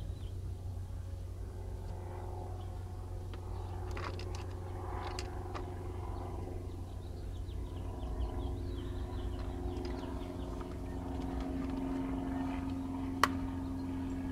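Engine drone in the background, low and steady, growing louder in the second half, under light clicks and rattles of the plastic radio case and circuit board being handled. One sharp click comes near the end.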